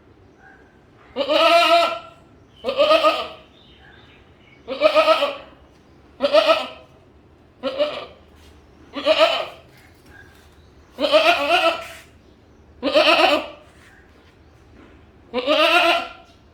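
A goat bleating repeatedly, nine wavering calls of about half a second to a second each, spaced a second and a half to two and a half seconds apart.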